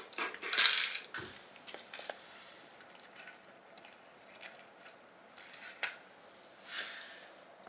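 A plastic slicker grooming brush scraping and knocking on a hard floor as a kitten paws and chews at it. There is a rustling scrape in the first second, then scattered light clicks, and another short scrape near the end.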